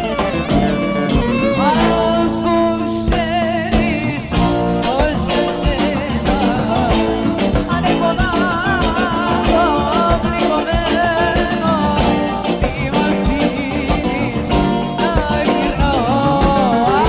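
A song: a singing voice with a wavering, vibrato-laden melody over sustained instrumental backing and a steady percussion beat.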